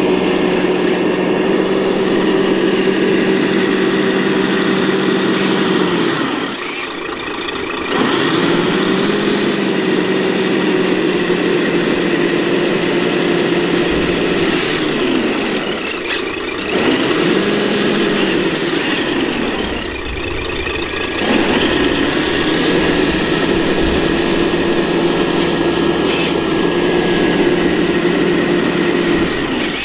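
Drive motor and gearbox of an 8x8 RC scale military truck whining steadily as it crawls, cutting out three times and gliding back up in pitch as the throttle comes back on.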